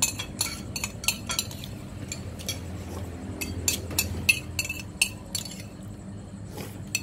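Spoons and cutlery clinking against bowls and dishes at a meal: a run of sharp clinks at the start and another in the middle, over a low background hum.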